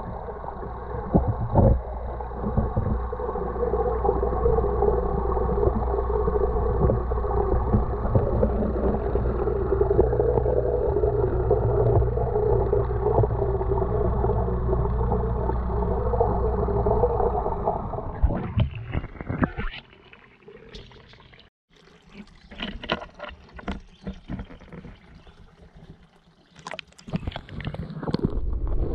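Muffled underwater rumble with a wavering mid-pitched hum, heard through a waterproof camera housing. About eighteen seconds in it drops to a much quieter underwater hush broken by scattered clicks and crackles.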